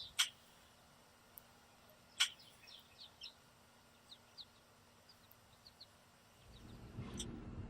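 Backyard songbirds calling: two sharp, loud chip notes, then a quick series of short high notes. Near the end a steady low rumbling noise comes in.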